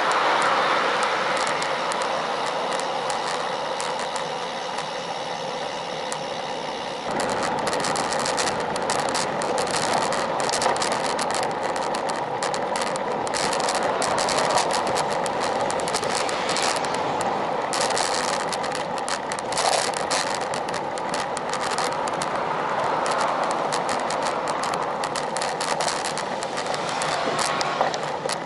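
Wind and road noise of a road bike riding along a street, picked up by a bike-mounted action camera's microphone: a steady rush that turns rougher and more crackly about seven seconds in.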